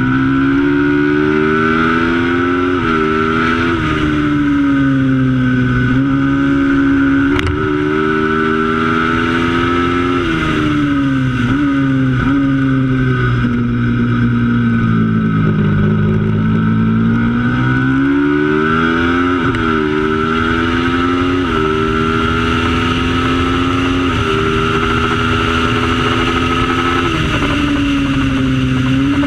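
Racing motorcycle engine at race pace, climbing in pitch and dropping suddenly at each upshift. It slows with a long falling note through the middle, then pulls hard up through the gears again.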